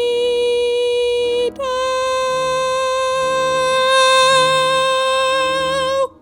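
A soprano voice holds one long high note. About one and a half seconds in it breaks briefly and steps up a half step, then holds the new note until it cuts off abruptly near the end. A soft accompaniment plays underneath.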